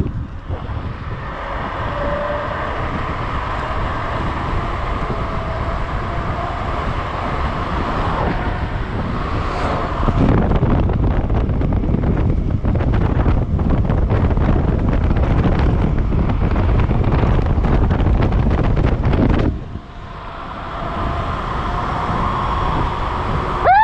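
Wind buffeting the microphone and tyre rumble from an electric scooter riding fast on asphalt, with a faint steady whine over it. The wind noise drops suddenly about twenty seconds in and then builds again.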